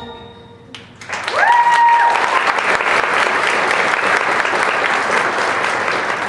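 Audience applause breaking out about a second in as the last sung note fades, with one rising whistle-like call just after the clapping begins.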